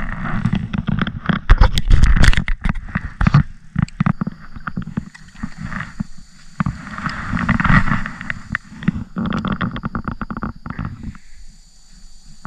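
Kayak paddling: the paddle splashes in the water and knocks against the boat in irregular clusters, over a low rumble. It settles down about eleven seconds in.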